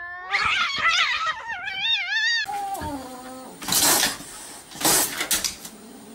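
Domestic cats yowling in a standoff, long wavering calls for about two and a half seconds. Then comes a cry falling in pitch, and two hisses about a second apart.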